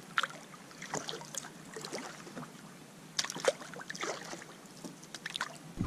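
Kayak paddle dipping into the water: light, irregular splashes and drips from the blades.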